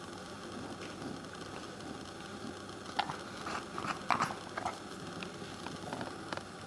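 English bulldog mouthing and chewing sand: a short run of crunchy, wet clicks about halfway through, over a steady background noise.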